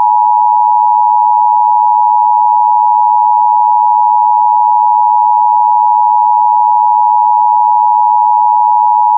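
Emergency Alert System attention signal: a loud, steady two-tone alarm of 853 Hz and 960 Hz sounded together. It warns that an emergency alert message is about to follow.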